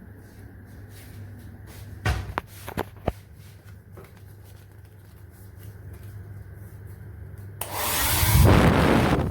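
Amurhey 2400 W ionic travel hair dryer being handled, with a few clicks and knocks about two seconds in over a low hum. Near the end the dryer blows: a loud rush of air that cuts off suddenly.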